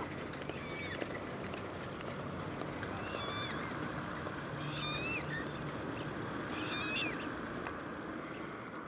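A bird calling four times, short harsh calls about two seconds apart that slide up in pitch, over a steady outdoor background rumble.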